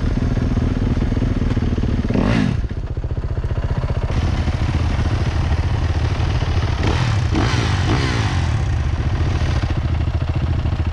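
Dirt bike engine running, blipped up in revs briefly about two seconds in and revved again a few times around seven to eight seconds.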